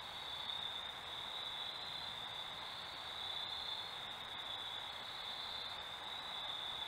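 Crickets chirring in a steady, unbroken high-pitched chorus over a faint hiss.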